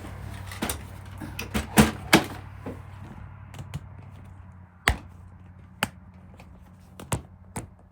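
Irregular sharp clicks and knocks of hand-tool work on wood as a hinge is fitted to a wooden cupboard, the loudest pair a couple of seconds in, over a low steady hum.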